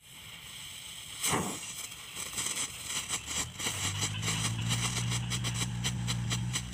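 A small ground firework burning: a sudden whoosh about a second in, then continuous hissing with rapid crackling. A steady low hum joins from about four seconds.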